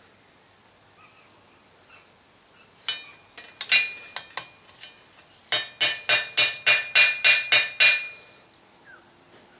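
Blacksmith's hammer striking hot steel on an anvil, light blows squaring up the shank of a forged key. A few scattered taps about three seconds in, then a quick run of about ten blows, roughly four a second, each with a short metallic ring.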